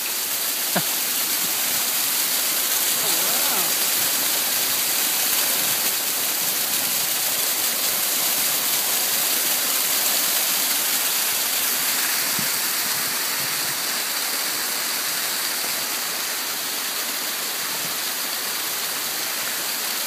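Steady, loud rush of a waterfall splashing down a rock face.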